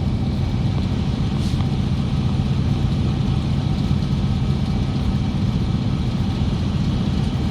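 Diesel semi truck engine running steadily: a low, even drone.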